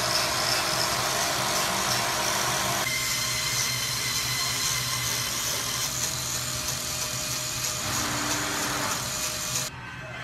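Angle grinder with a carving disc running steadily as it cuts into a wooden slab, its sound shifting about three seconds in and dropping away sharply shortly before the end.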